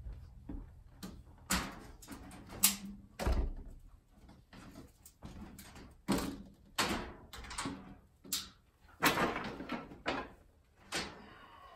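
A dozen or so irregular metal knocks and clunks as the Happijac slide-out mechanism's steel rack assembly is handled and carried out through a truck camper's entry door.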